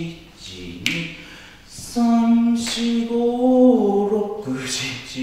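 A man's voice humming the dance tune with no music behind it, holding one long, slightly wavering note from about two seconds in. Before the note come a couple of sharp clicks.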